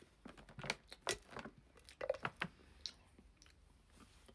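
Chewing a mouthful of chocolate with biscuit pieces through it: a run of irregular crisp crunches over the first three seconds or so, fading out after.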